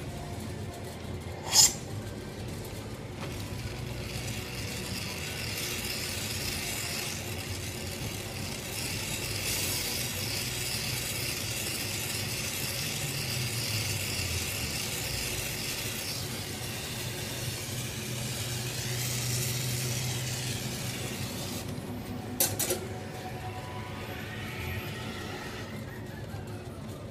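Glassblowing torch flame hissing steadily while the glass lathe turns, with a low hum underneath. The hiss is strongest through the middle stretch. There is a sharp click about a second and a half in and another one late on.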